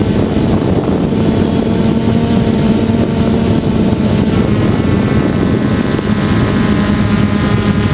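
DJI Phantom quadcopter's electric motors and propellers buzzing steadily, picked up by the camera mounted on the drone, over a rough low rumble. About five seconds in, more high overtones join the hum.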